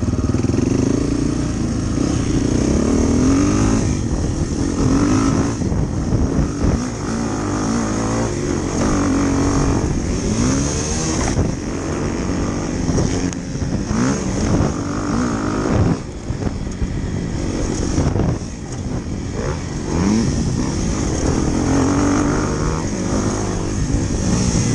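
Motorcycle engine running under way, its revs climbing and dropping again and again as the throttle opens and closes, with wind and road noise.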